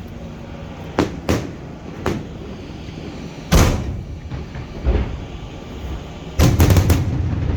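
Fireworks shells bursting overhead: scattered single booms, the loudest about three and a half seconds in, then a quick volley of several bangs near the end, over a low steady rumble.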